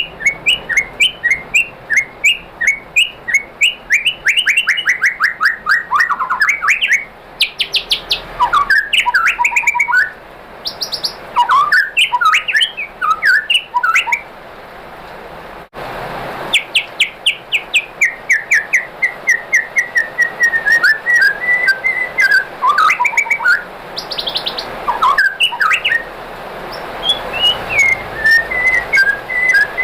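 White-rumped shama singing: fast runs of repeated chirps and trills mixed with varied whistled phrases. The song breaks off briefly about halfway through.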